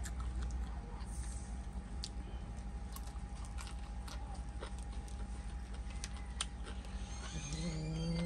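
A man eating with his fingers: scattered small clicks of chewing and of fingers in the mouth over a low steady background hum. Near the end comes a low hummed voice while he chews.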